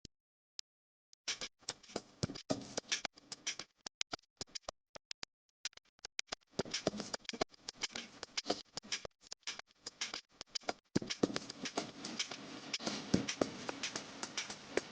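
Kitchen cooking noise: a utensil scraping and tapping against cookware in irregular, quick bursts, busier in the second half.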